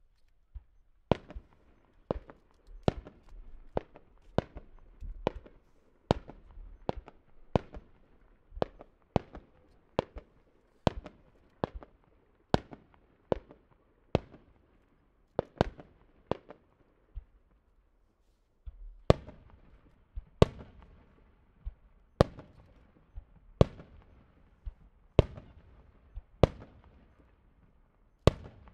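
Aerial firework shells bursting in a steady series of sharp booms, about one a second, each trailing off in a rumbling echo. After a short lull about 17 seconds in, the booms return louder and more widely spaced.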